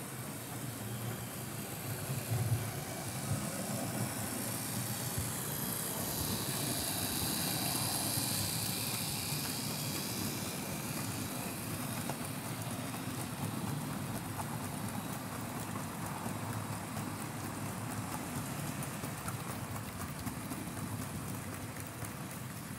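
Model coal train hauled by a Fleischmann BR 41 2-8-2 steam locomotive running on the layout track, giving a steady rattle of the wagons' wheels on the rails. It swells to its loudest about seven to ten seconds in, with a single knock about two seconds in.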